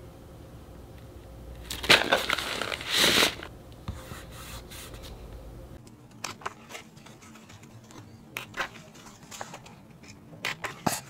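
Paper rustling and crinkling in two short bursts about two and three seconds in, as a crumpled paper wrapping comes off a hardcover photobook. This is followed by faint scattered rustles and taps of its thick pages being handled and turned.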